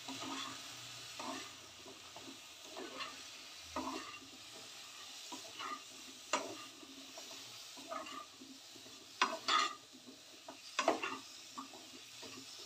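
Wooden spatula stirring raw papaya pieces in a metal kadhai, scraping and knocking against the pan, over a light sizzle of hot oil. A few louder scrapes come in the second half.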